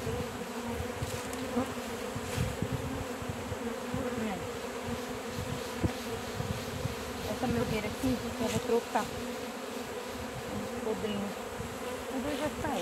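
Honey bees buzzing in numbers around an opened wooden hive: a steady hum from the mass of bees, with single bees flying close past now and then, their buzz rising and falling in pitch.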